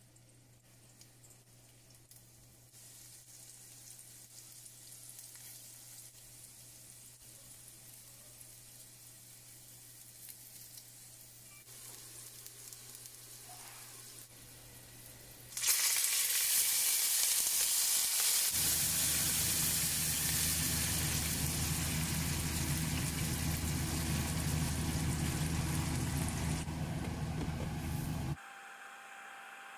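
Pan-fried buns sizzling faintly in oil in a nonstick pan, then, about halfway through, a sudden much louder sizzling and bubbling as cornstarch water hits the hot pan, which cuts off abruptly near the end.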